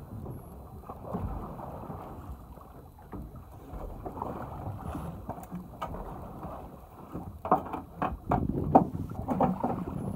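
Wind buffeting the microphone on a small boat at sea, over a rough wash of water and hull noise, with a run of louder short bumps in the last few seconds.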